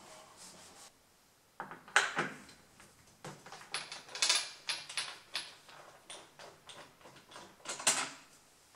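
Hands working at the plastic tank cover of a Kawasaki KVF 300 ATV: a string of sharp plastic clicks and knocks, a few a second, with the loudest knocks about two seconds in and near the end.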